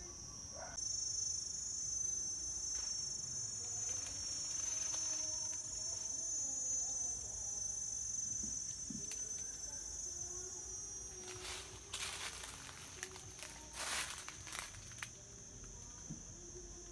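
Steady high-pitched drone of insects, louder for the first two-thirds. About two-thirds in come a few seconds of crackling footsteps on dry leaf litter.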